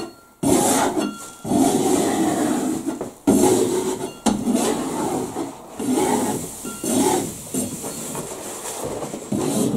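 Steel wallpaper stripping knife scraping soaked paper off a plastered wall in repeated strokes, the paper tearing away as it lifts. The paste has been softened by three soakings of water, so the paper comes off easily.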